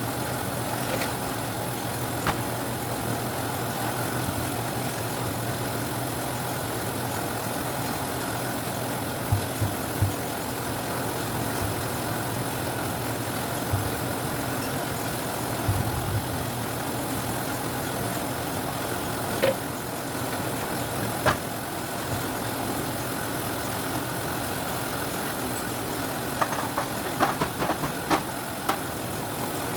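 Citrus sorting machine running with a steady hum, with a few sharp knocks scattered through and a quick run of clicks near the end.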